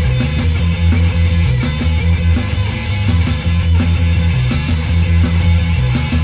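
Psychedelic acid rock played by a band: electric guitar over a stepping bass line and drums, loud and steady.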